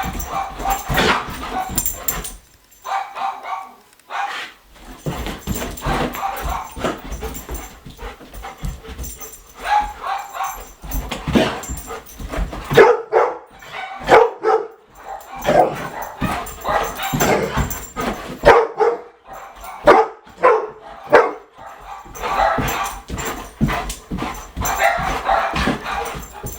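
Golden retriever barking and yipping over and over, worked up by a laser pointer dot it is chasing.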